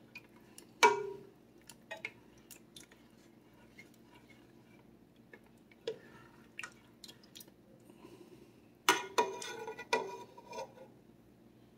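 A metal ladle stirring thick creamy soup in a metal pot: scattered scrapes and clinks, with one sharp ringing clank against the pot about a second in and a cluster of knocks and clatter near the end.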